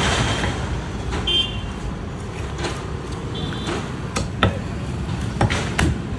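A large curved fish-cutting knife chopping through a fish into a wooden stump block, several sharp knocks in the second half, a few in quick succession near the end, over steady street traffic noise.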